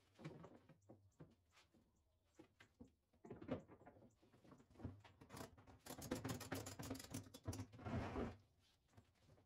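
A tie-down strap being handled and wrapped around a plastic trash can and its lid: scattered light clicks and knocks, then a stretch of rustling and scraping from about five and a half to eight seconds in.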